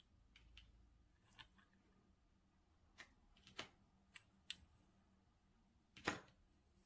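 Small metal thumbscrews being handled and set down on a table: a few faint, scattered clicks and taps, with the loudest tap about six seconds in.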